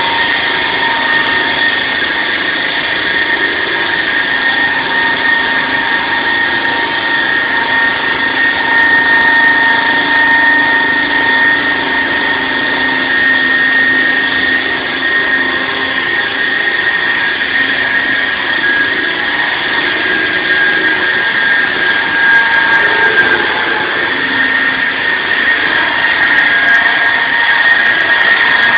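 SAW160 concrete saw running steadily, a constant high whine over a dense mechanical noise.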